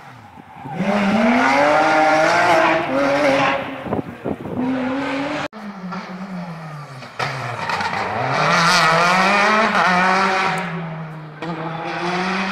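Rally car engine revving hard, its pitch climbing and dropping as it changes gear. An abrupt cut about five and a half seconds in, then another stretch of hard-revving rally engine rising and falling.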